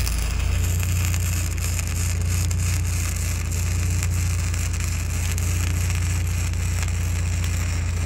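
Electric arc welding on steel pipe-half brackets: the arc gives a continuous, even frying crackle. A steady low machine hum runs underneath.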